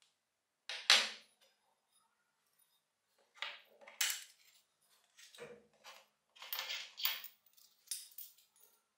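Restored metal parts of a pneumatic nailer handled and set down on a wooden workbench: a string of light metallic clinks and knocks, the loudest about a second in and several more close together later on.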